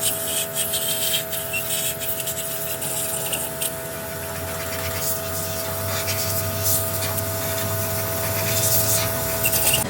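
Scraping and rubbing, irregular strokes of hand work over a steady hum that holds a few even tones.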